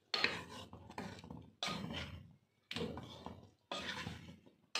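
A wooden spatula stirring and scraping chicken pieces in yogurt around a metal pot, in separate strokes about once a second.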